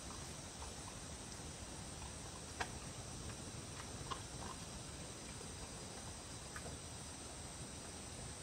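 Faint, scattered small clicks of a dog licking and eating at floor level over a steady hiss. A sharper click comes about two and a half seconds in and another about four seconds in.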